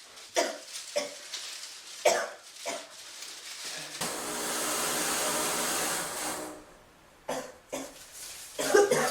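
A woman coughs repeatedly in short fits. In the middle, a fog machine gives a steady hiss with a low hum for about two and a half seconds.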